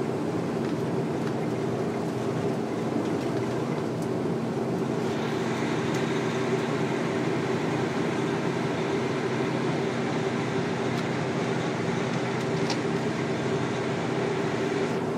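Truck driving, heard from inside the cab: a steady engine hum with road and wind noise, which gets brighter and hissier from about five seconds in.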